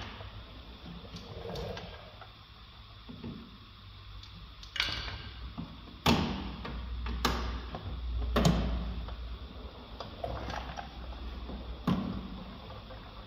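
Sharp knocks and clacks of parts and hands against the bare steel inner shell of a car door with its trim panel removed, about five irregular ones, each with a short ring.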